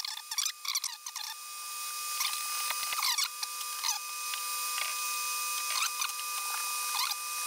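Hand tools working on the metal amplifier chassis, giving short, scattered squeaks that fall in pitch, over a steady hiss.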